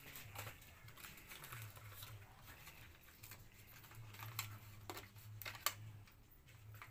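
Faint, irregular clicking and crinkling of plastic packaging and wrapping paper being handled as a gift is unpacked, over a low steady hum.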